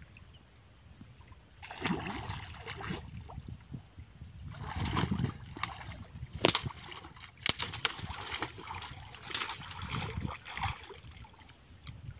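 River water sloshing and splashing in irregular bursts as a person wades through it, with a few sharp clicks among them.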